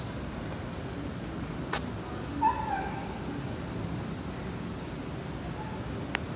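Steady outdoor background noise with one short, pitched animal yelp about two and a half seconds in. There is a sharp click just before it and another near the end, and faint, very high chirps scattered through.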